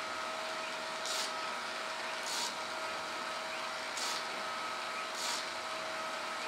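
Surface grinder running with a steady whine. Its abrasive wheel gives a short hiss on steel about every second and a quarter as the table carries the Damascus steel guard back and forth under it, flattening the guard's top face.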